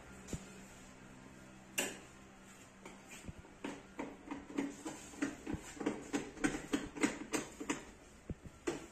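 Hand tools working on a Honda Activa 125 scooter's body: one sharp click about two seconds in, then a run of light clicks and knocks, two or three a second, through most of the rest.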